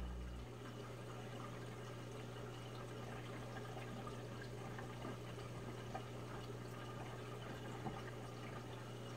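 Reef aquarium water circulating: steady trickling and splashing water over a constant low pump hum, with small scattered drips. A low sustained tone cuts off about half a second in.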